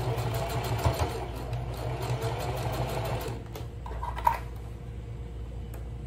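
Electric sewing machine running, stitching fast and steady through the bag fabric, then stopping a little over three seconds in. A short sharp click follows about a second later.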